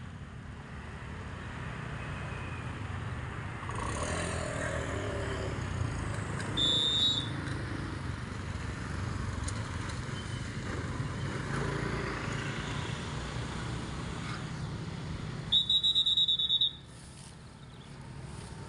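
Motorcycles and scooters running past as they ride over the level crossing. Near the end, a loud, fast high-pitched beeping lasts about a second and cuts off suddenly.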